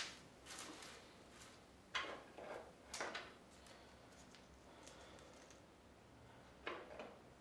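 Faint handling noises from power cables being moved and routed inside a computer case: a few light clicks and knocks, at the start, around two and three seconds in, and again near the end.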